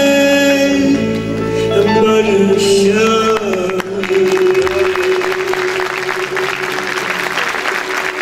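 Turkish classical song (Türk Sanat Müziği) ending: a solo singer with ud accompaniment sings the closing phrase and holds a long final note. Audience applause starts about four seconds in, under the held note.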